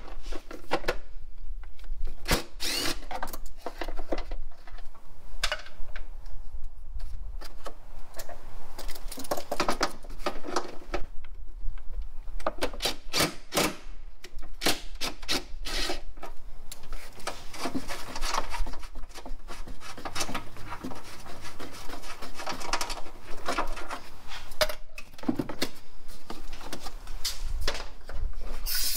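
Hand tools being worked on the vehicle's parts: irregular runs of clicking and scraping strokes, with no steady motor running.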